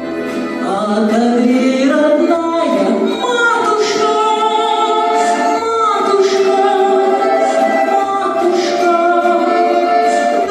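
Children's choir singing a slow song, several voices holding long notes together, with pitches gliding between them.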